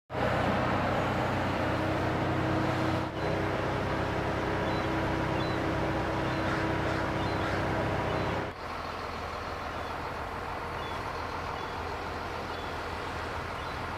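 A boat engine running steadily under a wash of wind and water noise. It breaks off briefly about three seconds in, and again at about eight and a half seconds, after which it is quieter and the engine hum mostly drops out.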